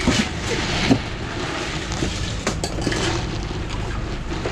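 Wind buffeting the microphone, a steady rumbling rush, with a few light knocks about a second in and twice more near the middle.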